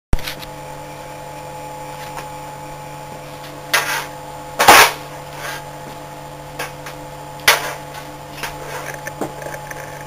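A steady hum with a handful of short, sharp knocks and clicks at irregular intervals, the loudest a little before halfway through.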